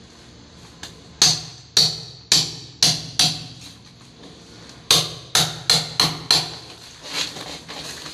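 Hammer and chisel chipping concrete: two runs of about five sharp, ringing blows, roughly two a second, with a few lighter taps near the end.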